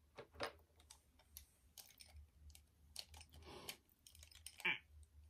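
Faint, irregular clicks and light plastic rattling of makeup pencils and products being handled and sorted through.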